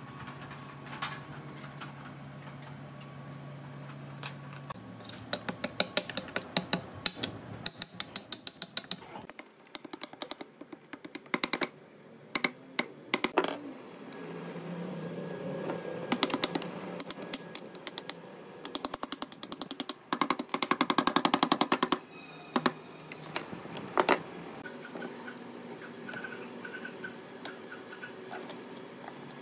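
Hand tools and metal parts clicking, tapping and clattering during gearbox restoration work, with a quick rattling run about twenty seconds in.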